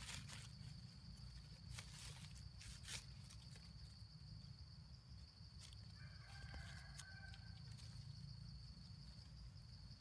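Near silence outdoors: a steady high thin whine over a low rumble, with a few soft rustles of leaves early on and a faint short pitched call, like a distant bird, about six seconds in.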